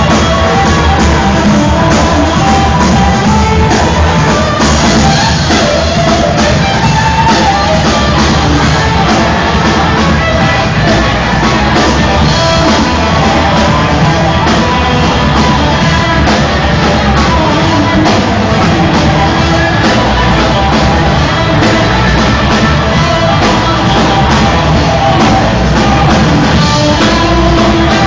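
Loud rock-style music with singing, playing without a break, with some shouting from a crowd.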